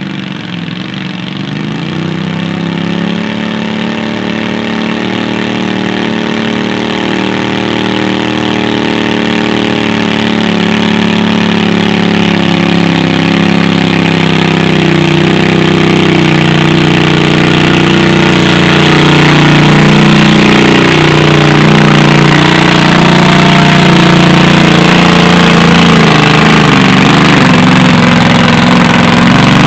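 Engine of a stock 20 hp garden tractor running hard under load as it pulls a weight sled, a steady drone that grows steadily louder as the tractor comes closer.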